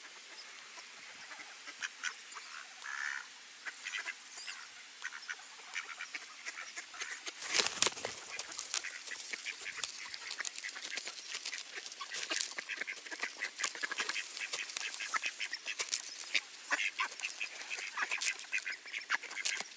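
Mallard ducks feeding from a plastic tub of cracked corn and seed. From about eight seconds in, their bills rattle through the grain in rapid clicks, with occasional quacks. There is a single thump just before the clicking starts.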